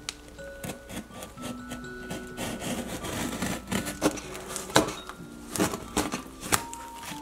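Utility knife blade slicing along packing tape on a cardboard box: scratchy cutting and rubbing with several sharp clicks, over soft background music.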